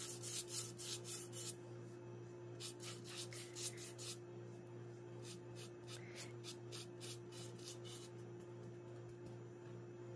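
Foam brush stroking coffee-and-vinegar stain across rough barn board: a run of faint, scratchy strokes, with a short pause about two seconds in. A steady low hum sits underneath.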